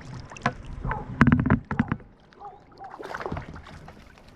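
Quick knocks and clicks in a kayak as a small freshly caught rainbow trout is handled. The knocks bunch together and are loudest just over a second in, with a smaller cluster a couple of seconds later.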